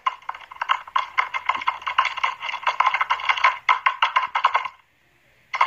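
Music with a quick, clicking percussive beat, thin and tinny as if coming through a phone call; it drops out briefly near the end and comes back.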